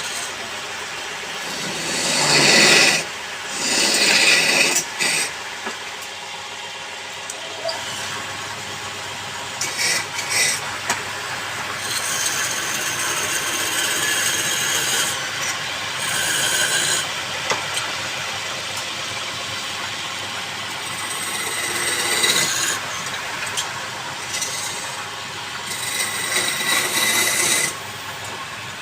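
Wood lathe running with a steady hum while a turning tool is repeatedly pressed against the spinning wood, giving loud bursts of scraping that come and go.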